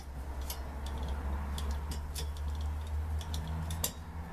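Scattered light metallic clicks and taps as hand tools and steering-rack parts are handled on a workbench, over a steady low hum.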